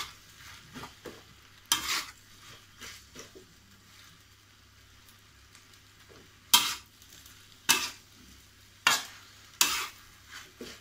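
Metal spatula scraping and striking a wok while stir-frying kwetiau noodles, in irregular strokes that come thicker in the second half, with a faint sizzle of frying between them.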